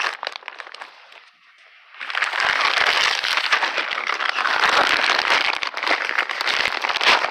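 Packaging being handled and pulled open: a few light clicks, then from about two seconds in dense, loud crinkling and crackling as the wrapping is worked.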